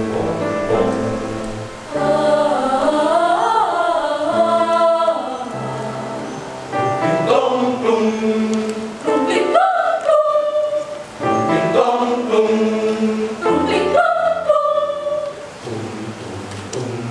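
Mixed youth choir of boys and girls singing in parts, in sung phrases with short breaks between them.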